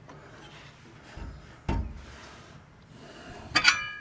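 Metal drum-brake parts and tools being handled. There is a dull thump about one and a half seconds in, then a sharp metallic clink that rings briefly near the end.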